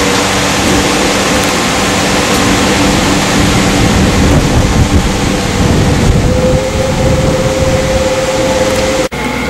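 Lake tour boat under way: its motor runs with a steady hum over loud rushing noise of water and wind. The sound breaks off abruptly just before the end.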